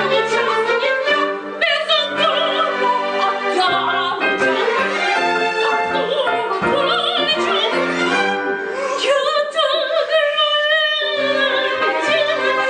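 A solo singer with vibrato performs a musical-theatre number, accompanied by a live theatre orchestra with strings.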